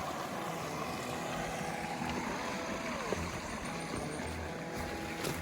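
Background music with sustained held notes and a few sliding tones.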